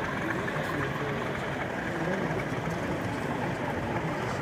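Steady hubbub of many overlapping voices in a large exhibition hall, with no single voice standing out.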